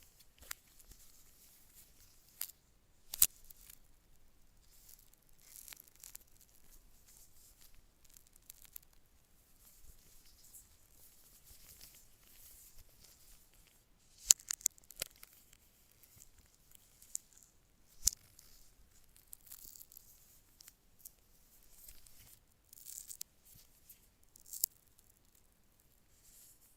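Phone packaging being handled and torn open: intermittent rustling and tearing of paper or plastic, broken by a few sharp clicks and taps.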